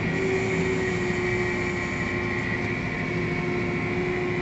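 Tractor engine running steadily under way, heard from inside its cab as a constant drone with a steady high whine.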